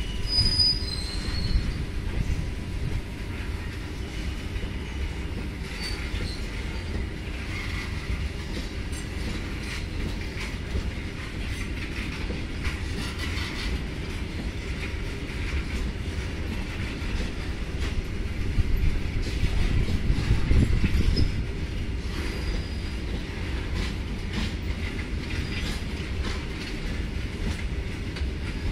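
Coal-laden BOXNHL open freight wagons rolling past: a steady low rumble of steel wheels on rail with clicks and clanks over the joints, and brief high-pitched wheel squeals near the start. The rumble grows louder for a couple of seconds about two-thirds of the way through.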